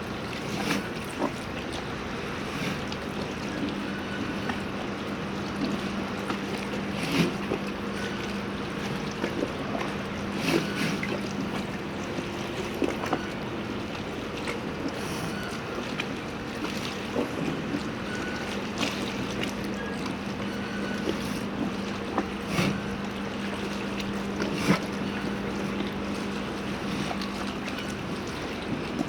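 Harbour ambience: a steady low mechanical hum over a wash of water, with scattered irregular knocks and clicks.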